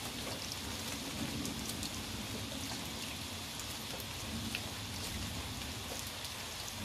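Steady rain falling, with scattered sharp ticks of individual drops striking close by.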